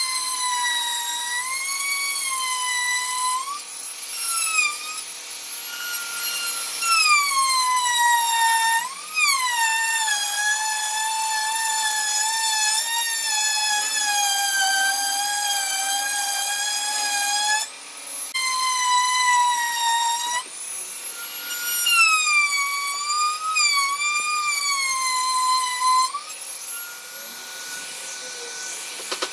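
Electric power tool whining as it works wood, its pitch sagging and recovering as the load changes, with two brief breaks and a rise to a steady higher pitch near the end.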